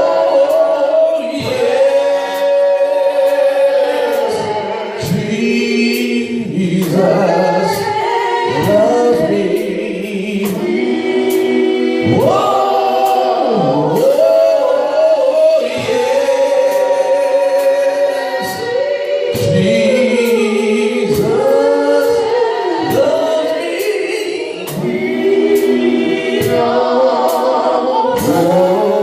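Gospel praise-and-worship singing by a choir, voices holding and sliding between long notes.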